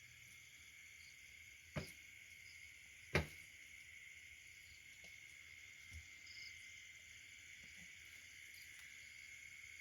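Faint, steady, high-pitched chorus of insects, with two sharp knocks about two and three seconds in and a weaker one near six seconds.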